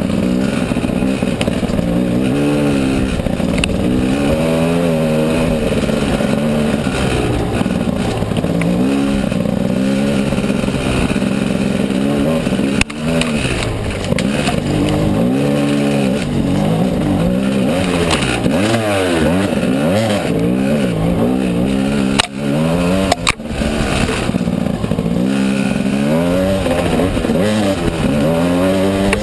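Gas Gas EC300 single-cylinder two-stroke enduro engine revving up and down over and over under load as the rider works the throttle up a rough trail. A few sharp knocks cut in, about halfway through and again twice near the two-thirds mark.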